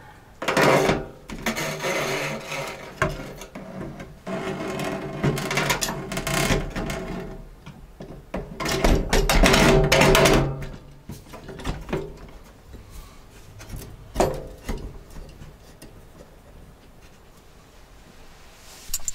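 A new pull-down kitchen faucet and its hose rubbing and scraping against the stainless steel sink deck plate as they are fed through the mounting hole and seated. The noise comes in several bouts with a ringing tone in them over the first ten seconds, then one short scrape about fourteen seconds in.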